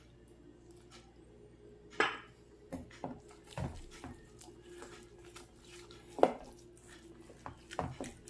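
A utensil clinking and knocking against a mixing bowl while dough is mixed: the first two seconds are quiet, then comes a run of irregular knocks, two of them sharper and louder than the rest.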